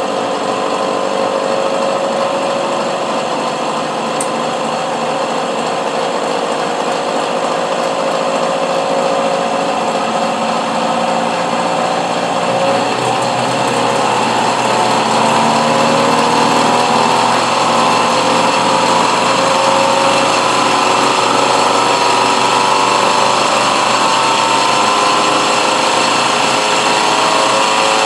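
Electric motor spinning an electrospinner's collector drum, a steady mechanical whir whose whine rises slowly in pitch as the drum is sped up, most noticeably in the second half.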